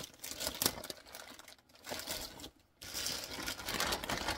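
Clear plastic packaging bag crinkling as it is handled and pulled open, with a brief pause about two and a half seconds in and denser crinkling after it.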